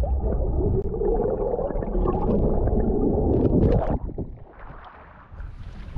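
Muffled underwater sound picked up by a camera below the surface: water rushing and gurgling, with nothing above a low, dull band. About four seconds in it switches to a much fainter sound at the surface: water lapping and wind.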